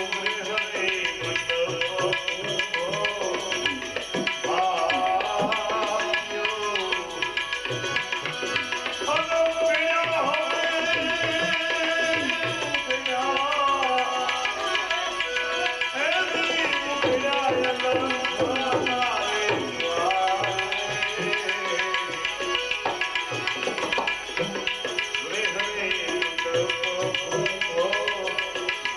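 Devotional bhajan music: tabla playing a steady rhythm under a wavering, gliding melodic line.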